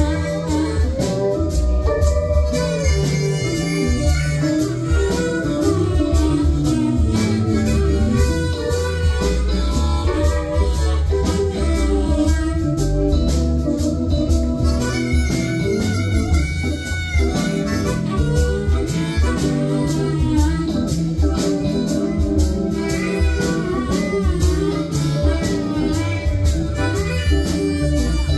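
Live electric blues-rock band playing an instrumental passage: electric guitar, keyboards and a drum kit, with a harmonica played into the vocal mic.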